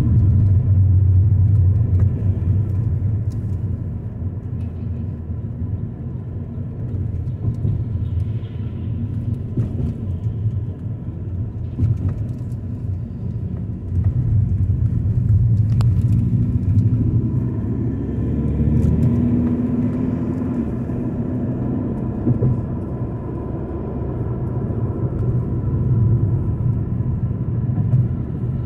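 A car driving: a steady low rumble of road and engine noise, growing louder about halfway through.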